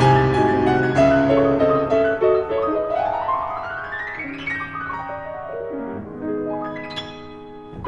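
Background piano music, with a rising run of notes through the middle that fades near the end.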